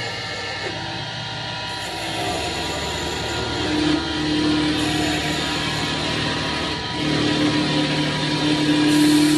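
Two-cutter wood copy lathe running while its knives cut a spinning wooden spindle into balls: a steady rushing cutting noise over the machine's hum. The hum grows stronger and louder about halfway through and again near the end.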